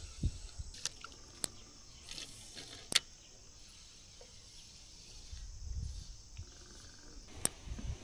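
Quiet outdoor ambience with faint, steady insect chirring, broken by a few sharp clicks and a soft low rumble in the second half.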